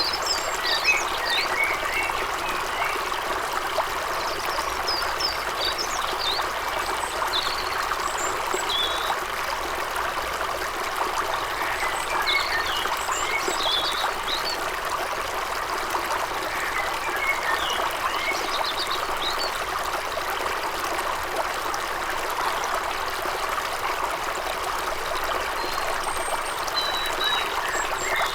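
Forest stream running with a steady rush of water, and small birds singing short phrases of high chirps every few seconds over it.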